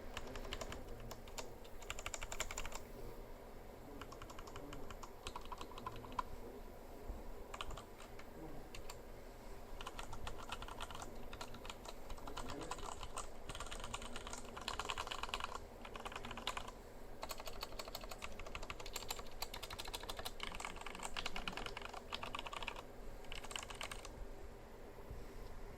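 Typing on a Vortex Type M mechanical keyboard with brown switches: rapid runs of key clicks in bursts, broken by short pauses.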